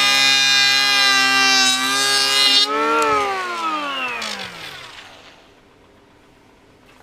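Parkside 12 V brushless cordless planer whining under load as it cuts wood. A little before halfway the cutting noise stops, and once the trigger is released the motor's pitch falls steadily as the cutter block spins down and fades out.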